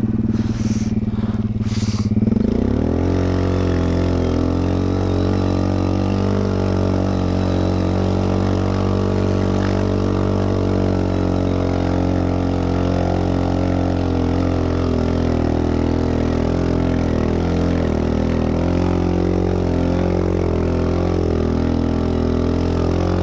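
ATV engine running steadily. Its pitch shifts about two seconds in and then holds steady for the rest.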